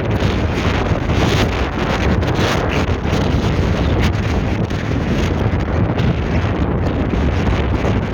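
Strong wind buffeting the microphone in a wind storm: a loud, steady, rumbling roar with gusty swells.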